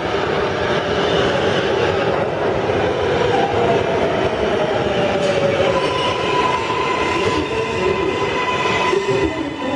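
New York City Subway R142A train pulling into the station and slowing, with loud steady rumble of wheels on rail. A tone falls in pitch as it slows, and a steady high tone joins about six seconds in.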